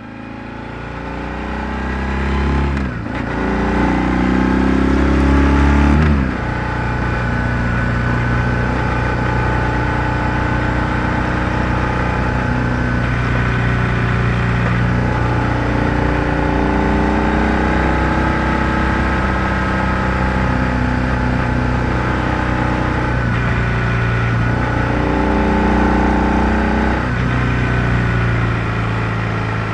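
BMW R1100R's air- and oil-cooled boxer twin engine, picked up by a microphone under the seat while riding. It fades in, climbs in revs with a break at about three seconds and again at about six, like upshifts, then runs at a steady cruise with small rises and falls in pitch.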